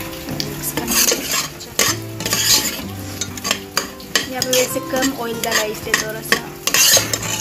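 A steel spoon stirring and scraping thick onion-tomato masala paste around a non-stick frying pan in irregular strokes, with the paste sizzling in hot oil.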